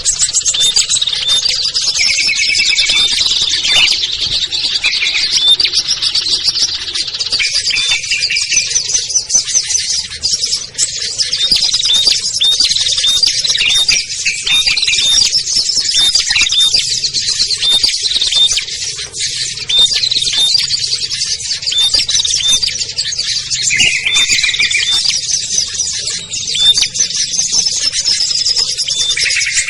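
Dense, continuous chorus of many small songbirds chirping and trilling over one another, high-pitched and without pause, with a few harsher buzzy notes about two seconds in and again near the end: a mixed bird-lure recording made to draw wild small birds in.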